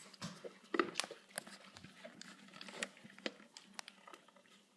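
Faint scattered clicks and light taps of lamp parts being handled while a bolt on the lamp is unscrewed.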